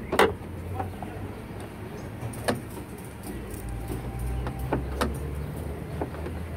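A few sharp clicks and knocks, the loudest just at the start, from hands handling the underside of a BMW F10's bonnet and its release cable and latch, over a steady low rumble.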